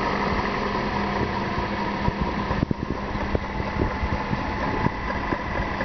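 Toyota Corolla engine idling under the hood, with light, irregular ticks over the steady running. This is the tapping the owner likens to knocking on plastic: a noise that has newly appeared, gets more intense with higher revs and is the same on a cold or a warm engine.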